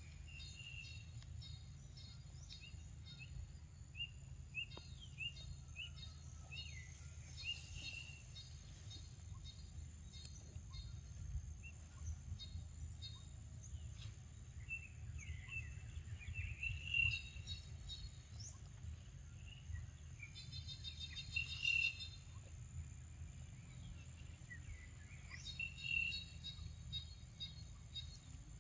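Outdoor ambience of birds calling, with repeated short chirps and fast rattling trills that come again every few seconds. Under them runs a steady high-pitched insect drone and a low rumble.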